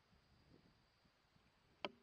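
Near silence, with one faint click near the end.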